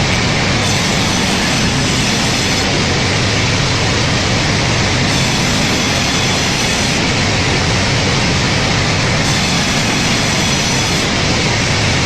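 Steady, loud machine noise, unchanging throughout.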